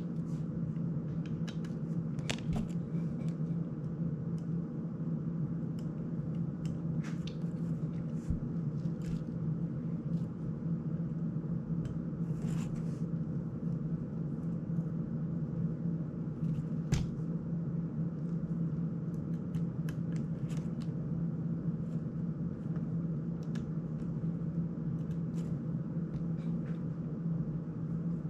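Scattered small clicks and scrapes of fingers handling an FPV drone's plastic frame and small parts, over a steady low hum. A sharper click comes about 17 s in and a short rustle a few seconds before it.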